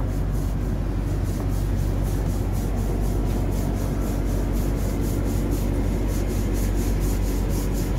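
Fishing boat's diesel engine running steadily under way: a constant low drone with a fast, even beat of about five ticks a second.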